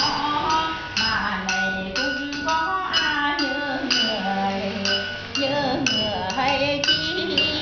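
Folk singing by voices without instruments, with sharp clicking taps about twice a second keeping the beat.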